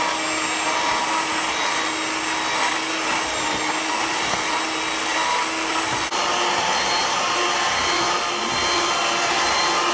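Electric hand mixer running steadily, its twin beaters whisking eggs into a batter of creamed butter and brown sugar in a plastic bowl.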